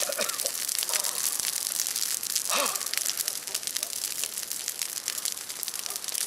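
Large open bonfire of broken tree branches crackling and popping steadily, with faint voices in the background.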